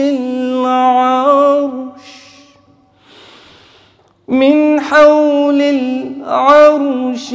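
A man's voice reciting the Quran in a melodic, unaccompanied chant, holding the ornamented final note of "al-ʿarsh" until about two seconds in. There is a short pause with audible breaths drawn in, then the melodic recitation resumes, wavering and ornamented, just past the middle.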